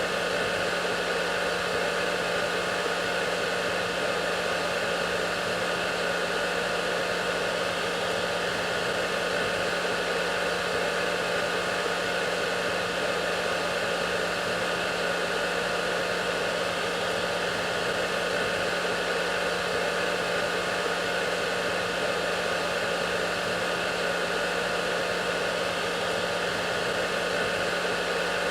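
Hair dryer running steadily: a constant rush of blown air with an unchanging motor hum and whine.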